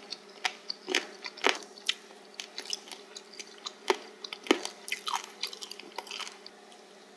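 Close-miked chewing of spicy stir-fried pork cartilage (odolppyeo): the cartilage crunches between the teeth in short, sharp, irregular crunches that die away about six and a half seconds in.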